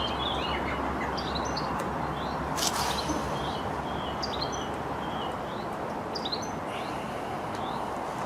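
Small birds chirping repeatedly over a steady rush of wind noise, with one sharp click about two and a half seconds in.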